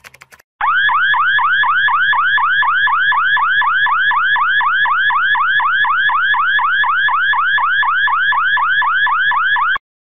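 Car alarm siren: a rapid, evenly repeating electronic chirp, each one a quick upward sweep in pitch, about four a second. It starts abruptly about half a second in and cuts off suddenly near the end.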